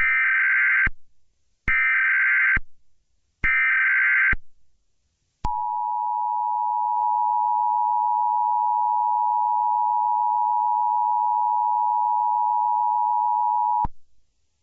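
Emergency Alert System tones: three short bursts of SAME header data, each just under a second with a harsh buzzy screech, then the steady two-tone attention signal held for about eight seconds and cut off sharply. This sequence opens a new emergency alert message.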